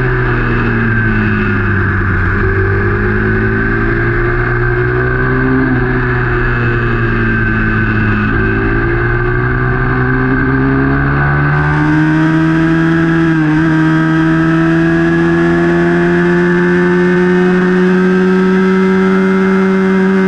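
Small race motorcycle's engine heard onboard, revs dipping and climbing again several times through corners, then held steady at high revs from about halfway through.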